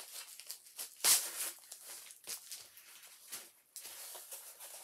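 Packaging rustling and crinkling: a plastic bubble mailer and the paper wrapping of a rolled canvas being handled and unrolled, in irregular rustles with a louder crinkle about a second in.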